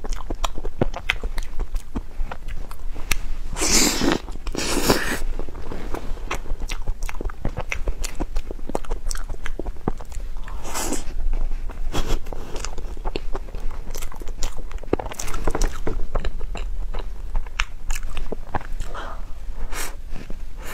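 Close-miked chewing of a soft cream-and-taro dessert: many small wet mouth clicks and smacks, with a few louder rustling bursts about four, five and eleven seconds in.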